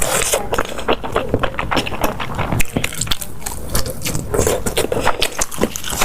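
Close-up eating sounds: a person chewing, with many quick irregular mouth clicks and wet smacks.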